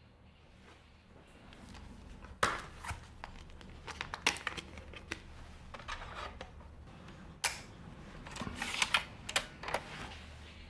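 Desk handling sounds: a plastic DVD case being opened and handled, then laptop keys and touchpad being clicked, in a run of sharp clicks and clatters with a faint steady hum under them.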